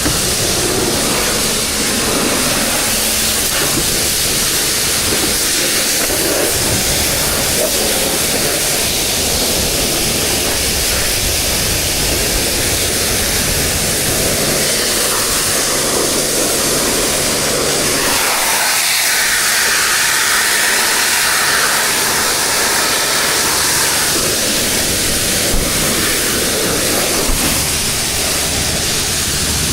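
High-pressure washer spraying water, a loud, steady hiss that changes in tone for a few seconds past the middle.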